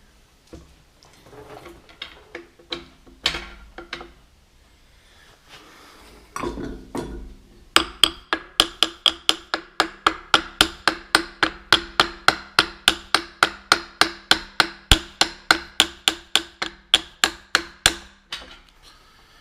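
Hammer blows driving a warmed timing gear onto the camshaft of a Continental F162 engine: a few scattered knocks, then from about eight seconds in a steady run of sharp, ringing strikes, about four a second, for roughly ten seconds.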